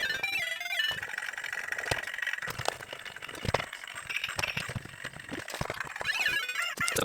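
Tinny electronic tunes and sound effects from the Playgro music maker toy's small speaker, working again after its coil was reglued, mixed with clicks and rattles of its plastic casing being handled.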